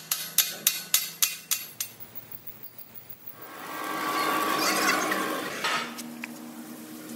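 Six quick hammer blows on metal, about three a second, each ringing briefly. A steady mechanical whir with a humming tone then swells up in the second half and eases off near the end.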